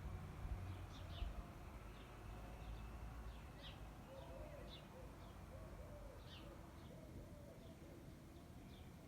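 Garden birds calling: short, high, down-slurred chirps repeating every second or so, with a lower wavering call about halfway through, over a faint steady low rumble.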